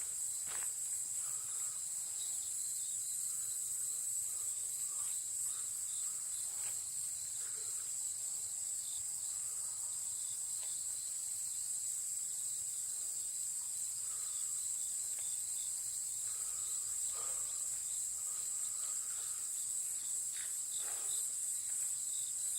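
A steady, high-pitched, unbroken chorus of insects shrilling, with a few faint taps now and then.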